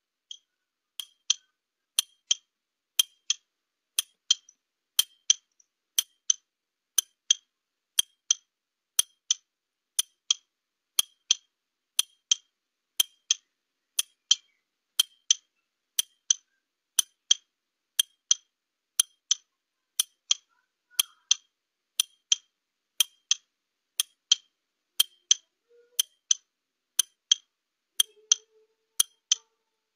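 Clock ticking used as a 30-second countdown timer, a steady tick-tock of about two ticks a second.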